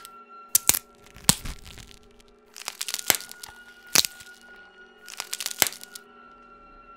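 Sharp cracking and crunching sound effects in several quick bursts, over a steady droning music bed.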